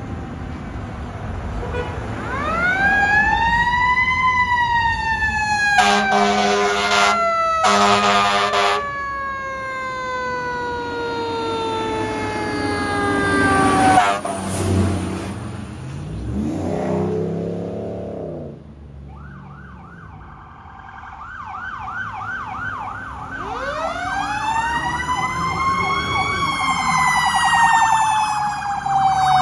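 Fire engine sirens on an emergency response. A siren winds up and then slowly falls in pitch, with two long air-horn blasts about six and eight seconds in. Later a fast electronic warble siren sounds, followed by a second wind-up-and-fall siren.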